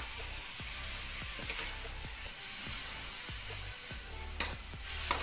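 Shredded chicken sizzling in a metal wok with a splash of chicken broth, stirred with a metal slotted turner that scrapes and clicks against the pan. There are a few sharper knocks of the turner on the wok near the end.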